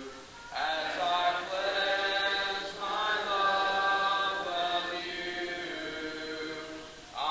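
Hymn sung a cappella by voices alone, with no instruments: long held notes in phrases, one starting about half a second in and a new one beginning near the end after a short pause for breath.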